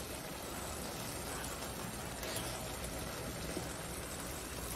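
Rice pilaf simmering in a pot on a gas stove: a steady, faint sizzling hiss.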